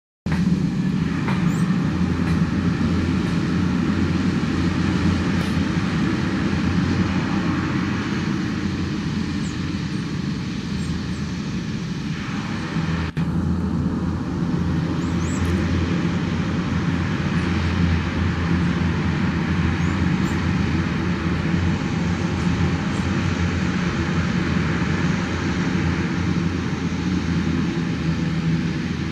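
Beechcraft King Air B200's twin Pratt & Whitney PT6A turboprop engines running at low power as the aircraft taxis: a steady low propeller hum with a turbine hiss above it.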